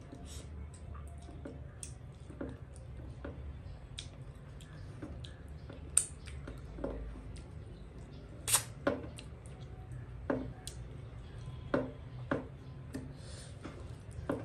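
Eating sounds of a person eating by hand: scattered wet smacks and sharp clicks from chewing and licking the fingers, the loudest of them in the second half.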